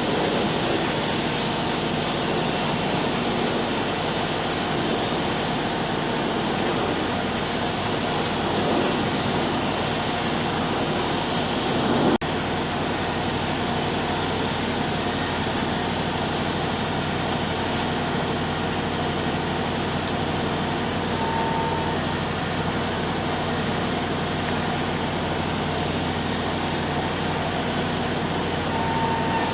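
Heavy diesel engine of construction machinery running steadily at constant speed. A sharp click cuts across it about twelve seconds in, and a short high beep sounds twice in the second half.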